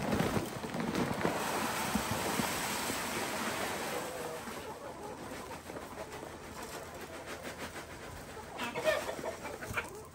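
Chicken feed pouring from a bag into a galvanized metal feeder, a dense rushing rattle that is strongest over the first few seconds and then thins out. Chickens cluck now and then.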